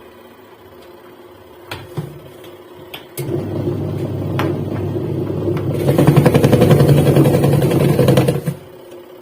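A few sharp clicks, then an LG washing machine's motor and drive start suddenly about three seconds in. It runs steadily and grows louder with a fast, even rattle about six seconds in, then stops abruptly after about five seconds of running. This is a test run after a gearbox and drain repair, with no stalling.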